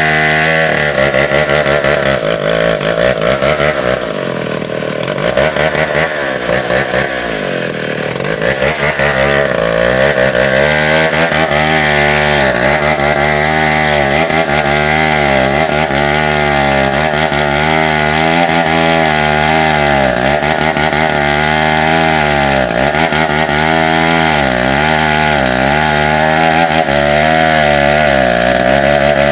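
Tecogold 700 chainsaw running at high revs while cutting into bengkirai hardwood. The engine note sags for a few seconds about four seconds in, then climbs back and holds high with a regular wavering as the bar works through the cut.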